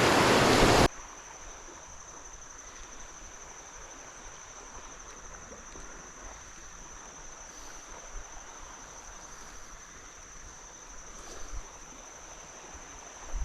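Creek water rushing loudly for about the first second, then cutting off abruptly to a quiet, steady hiss with a faint, steady high-pitched tone over it.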